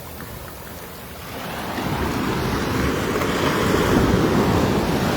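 Sea wave breaking and washing up the beach: the surf hiss swells from about a second in and stays loud to the end.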